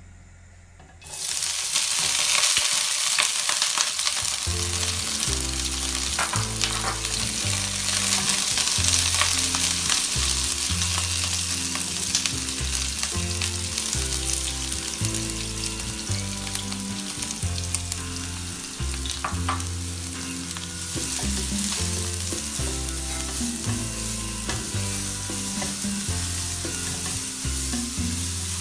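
Hot oil sizzling loudly in a non-stick wok as chopped green onion and minced carrot are stir-fried, starting suddenly about a second in, with the spatula scraping and clicking against the pan.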